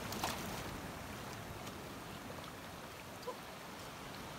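Sea waves washing steadily over shoreline rocks, with a faint click near the start and a small knock about three seconds in.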